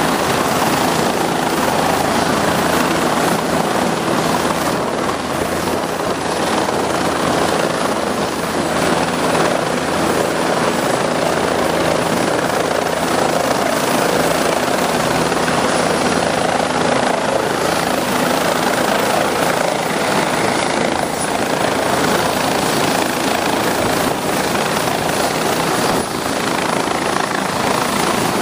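Turbine tour helicopters running on a helipad: a steady, loud rush of rotor and turbine noise with faint low engine tones underneath, unchanging throughout.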